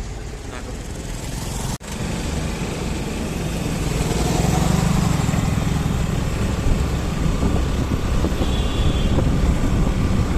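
Steady road and wind noise of a moving vehicle, a low rumble under a broad rush, with a brief break about two seconds in.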